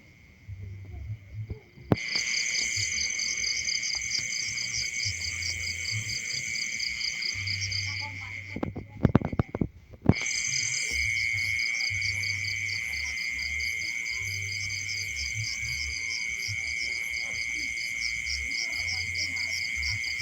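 A steady, shrill chorus of insects trilling with a fast pulse. It is missing for the first two seconds and drops out again for about two seconds near the middle, where several sharp knocks are the loudest sounds.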